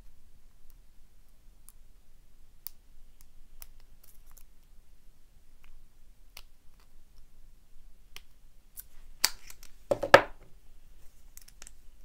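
Faint, scattered ticks of a pick and tension wrench working the pins of a five-pin American Lock 1100 padlock. About nine seconds in, a sharp click and then a louder clatter as the opened lock is set down and the next one taken up.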